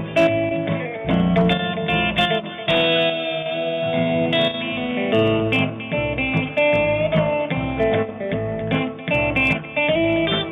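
Live band playing an instrumental passage on acoustic guitars: chords strummed in a steady rhythm under a picked melody line.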